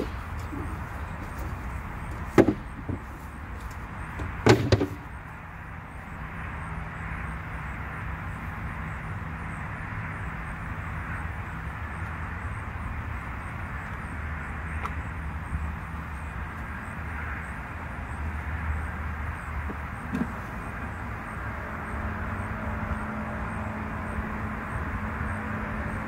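Wooden beehive boxes and frames being handled, giving a few sharp knocks in the first five seconds and one more about twenty seconds in, over a steady low rush and hum.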